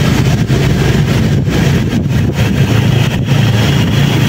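Motor scooter engine running steadily while riding along the street, with wind rushing over the microphone.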